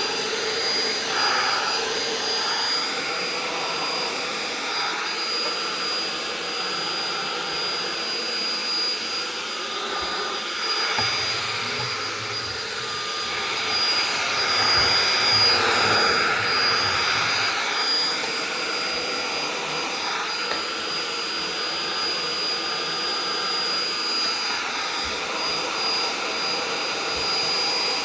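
Vacuum cleaner running steadily, with a thin high whine over its motor noise, growing a little louder for a few seconds midway.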